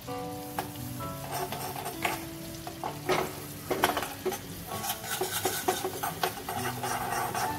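Chopped garlic and cumin seeds sizzling in melted butter in a small tadka pan, a spoon stirring them with quick scrapes and clicks against the pan: the tempering fry before the garlic turns light brown. Soft background music of held notes plays underneath.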